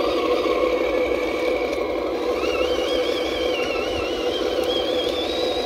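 1/12-scale CROSS RC KrAZ 260 truck's electric motor and gear drive whining steadily as it drives, with a higher, wavering whine that climbs in pitch from about halfway.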